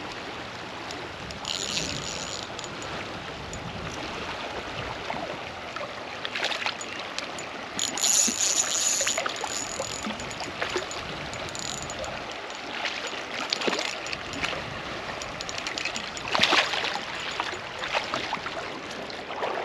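Steady rush of flowing stream water, with two brief louder hissing bursts, about two seconds in and about eight seconds in.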